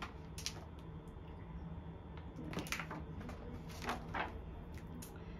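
Paper pages of a hardcover book being turned: a few short, soft rustles over a low steady hum.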